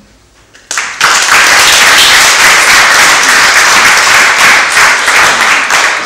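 Audience applauding, starting suddenly just under a second in and beginning to die away near the end.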